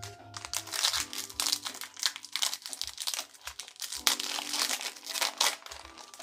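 Foil wrapper of a Pokémon card booster pack crinkling and tearing as it is ripped open, a run of quick rustles, over soft background music.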